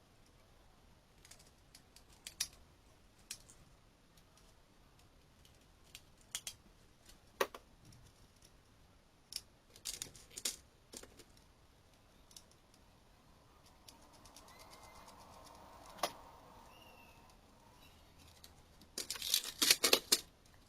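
Scattered light clicks and taps of small parts and tools being handled on a workbench, with a faint hum in the middle and a quick run of louder clicks near the end.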